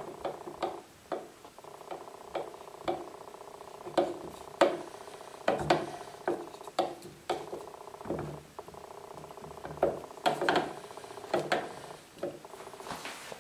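Irregular clicks and knocks of hands working a drill's plastic keyless chuck and the parts of a homemade wooden lathe, over a steady hum.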